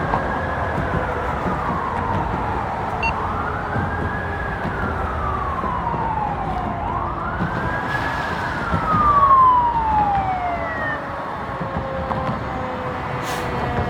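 Fire apparatus siren sounding in a wail: three cycles, each rising quickly and then falling slowly over about three seconds, over the rumble of the truck. Toward the end the sweeps stop and a lower tone slowly falls away as the siren winds down.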